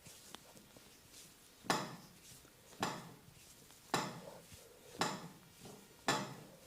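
Five sharp strikes about a second apart, evenly paced, each with a short ringing tail: rhythmic percussive massage strokes.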